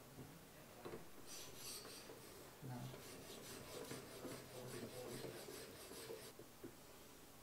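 The fine polishing stone of an Edge Pro Apex sharpening system rubs along the edge of an ESEE-4 knife blade in a quick run of short strokes, a faint scratchy hiss. It is polishing the micro-bevel. The strokes start about a second in and stop about a second before the end.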